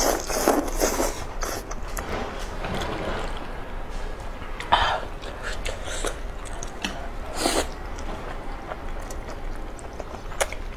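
Close-miked slurping and chewing of thick saucy noodles. Louder slurps come right at the start, about five seconds in, and again about two and a half seconds later.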